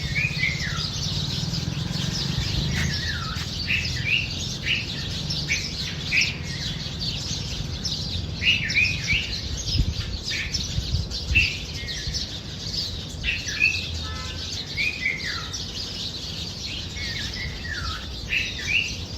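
Bulbuls at a nest chirping repeatedly, short calls, several sliding down in pitch, over a continuous thin high-pitched chatter.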